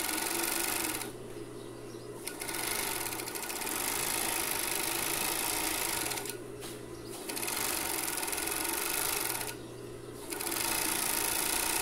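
Industrial coverstitch machine (galoneira) with a binder attachment running, stitching bias binding. It runs in four spells, stopping briefly three times as the fabric is repositioned.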